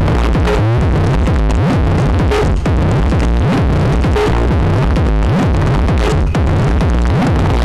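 Loud techno played over a parade truck's sound system: a heavy, steady bass beat with synth lines sliding up and down.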